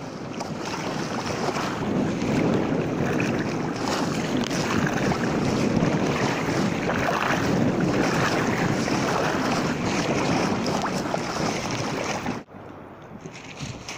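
Wind buffeting the microphone and choppy waves splashing against the hull of a sailing sea kayak under way. Near the end it drops suddenly to a quieter wash of water.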